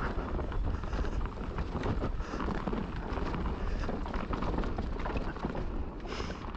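Mountain bike riding fast down a dirt trail: tyres rolling over the ground with a continuous clatter of small knocks and rattles from the bike, over a steady rumble of wind on the microphone.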